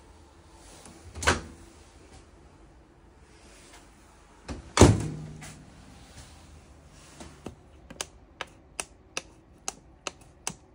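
Two sharp knocks, the second louder with a brief ring. Then, in the second half, a run of quick clicks, about two to three a second, as the push buttons on an RV tank-level monitor panel are pressed one after another.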